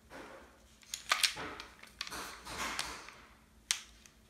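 Small hard objects handled and set down close to the microphone: a few sharp clicks and knocks with rustling in between.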